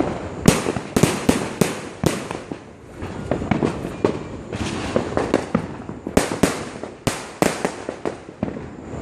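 Fireworks going off in a rapid irregular barrage: sharp bangs of aerial shells and firecrackers one after another over continuous crackling, with the loudest reports about half a second in, near the two-second mark and around seven seconds in.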